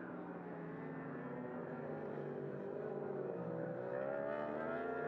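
Superbike racing motorcycles' four-stroke engines running hard on track, several at once. Their pitch falls about two-thirds of the way through, then climbs again as they accelerate.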